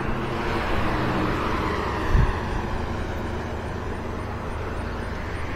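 Road traffic: a car passing, its tyre and engine noise swelling over the first couple of seconds and then fading, over a steady low hum. A single low thump about two seconds in.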